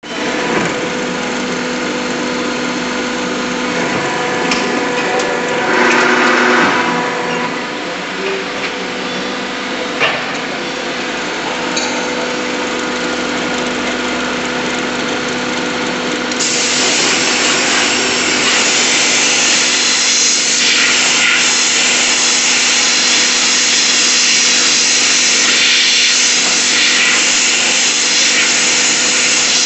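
Die-casting machine running with a steady hum under constant mechanical noise, with a sharp click about ten seconds in. About halfway through, a loud, steady hiss starts up and continues while the die stands open.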